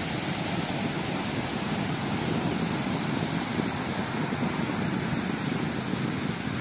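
Ocean surf at the beach: a steady rush of breaking waves.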